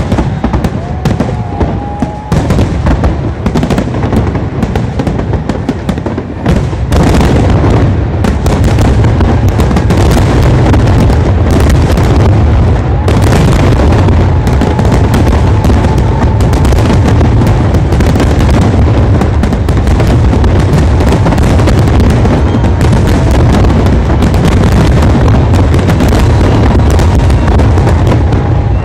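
Fireworks display: rapid bangs and crackles that thicken after about seven seconds into a dense, continuous barrage of explosions, the finale of the show.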